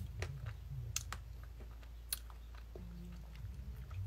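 Someone eating ice cream off a metal spoon: soft, irregular clicks and mouth smacks, a dozen or so spread across a few seconds.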